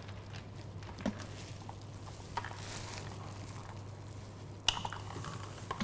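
A kitten's paws knocking and scrabbling on a cardboard box: a few light, separate knocks, the sharpest about three-quarters of the way through, over a steady low hum.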